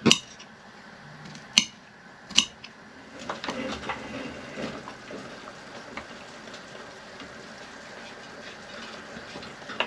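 Chopped vegetables scraped with a knife off a chopping board into a pan of soup, with a few sharp knocks in the first couple of seconds and a rustling scrape after that.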